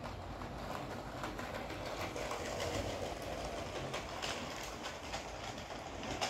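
LEGO Powered Up train motor running as the LEGO City Express Passenger Train rolls along plastic LEGO track, with a steady whirr and irregular clicks as the wheels cross rail joints and a switch point.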